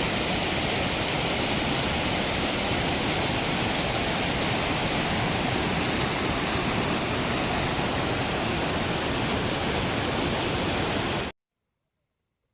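Steady rush of water, even and unbroken, that stops abruptly near the end.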